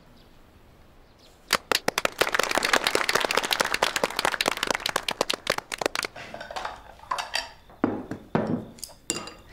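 A small group clapping, starting about a second and a half in, dense for several seconds and then thinning out. Near the end come a few clinks of porcelain bowls and chopsticks.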